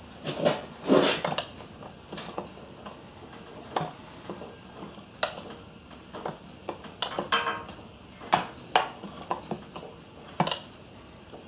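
Irregular metallic clicks and clanks as the flywheel of a small Thompson model engine is turned over by hand to start it; the engine does not catch and run. The loudest clanks come about a second in and again a little past eight seconds.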